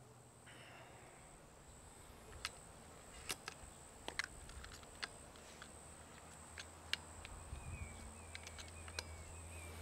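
Faint outdoor ambience with a steady high insect buzz, broken by a handful of light, sharp clicks from handling a metal pellet tin and the air rifle. Near the end a bird chirps several times in quick succession and a low hum creeps in.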